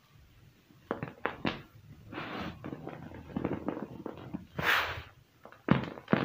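Hands crushing chunks of gym chalk and cornstarch over crushed charcoal. After a quiet start there are sharp crunches about a second in, then crumbling, and two soft hissing pours as powder sifts out of the fingers. Two more sharp crunches come near the end.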